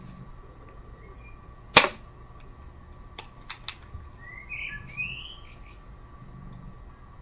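Air pistol firing a single dart: one sharp crack about two seconds in. A few light clicks follow as the pistol is handled for reloading.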